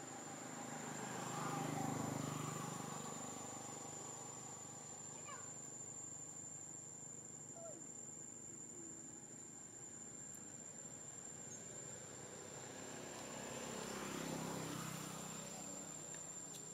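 Insects droning with one steady high-pitched tone. Twice, about two seconds in and again near the end, a broader rumbling noise swells up and fades away.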